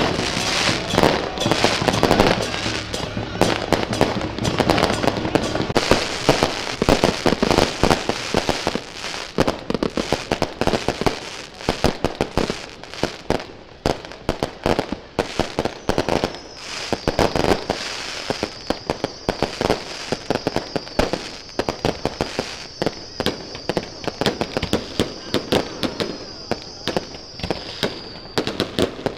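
Fireworks and firecrackers going off in a rapid, dense crackle of pops, heaviest at the start. From about halfway a high, steady whistle runs alongside the crackling until just before the end.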